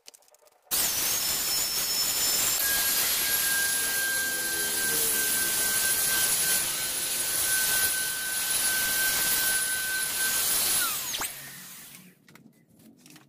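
Handheld electric paint spray gun running and spraying paint: a loud steady hiss of air with a high steady whine. It switches on just under a second in and shuts off after about ten seconds, its whine sliding down in pitch as it stops.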